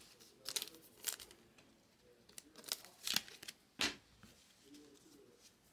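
Baseball trading cards being handled and set down onto stacks: a handful of faint, short slides and taps spread over a few seconds.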